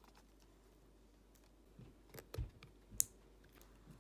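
Handling noise in a quiet small room: a handful of light clicks and knocks in the second half, with a dull thump just before the sharpest click about three seconds in.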